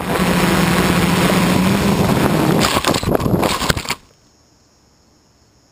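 Quadcopter's electric motors and 9-inch props running with a steady hum and rushing air, then, a little under three seconds in, a rapid clatter of props striking grass and brush as it crashes. At about four seconds the motors cut off suddenly, leaving only a faint hiss.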